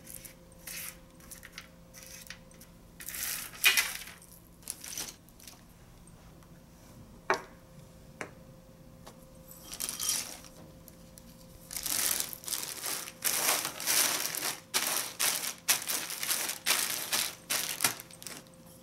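Roasted nuts dropped by hand into a plastic zip-top bag, clicking in small scattered drops with light plastic rustling. In the second half the plastic bag crinkles in rapid bursts as it is handled and the nuts are spread flat inside it.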